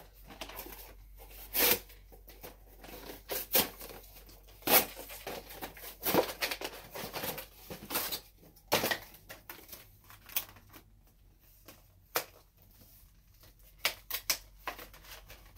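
A Pokémon card Lycanroc GX collection box being opened by hand: cardboard tearing and rustling, with irregular sharp clicks and crinkles of the packaging. Near the end the clear plastic insert tray is handled.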